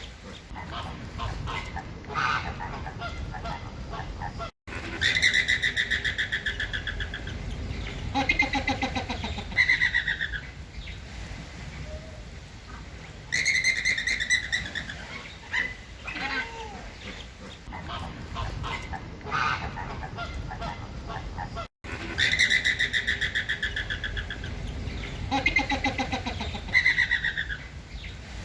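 Flamingos calling: repeated goose-like honking calls, some held about a second and others short, over a low steady background of the flock. The sound cuts out for an instant twice, about a sixth of the way in and about three quarters of the way in.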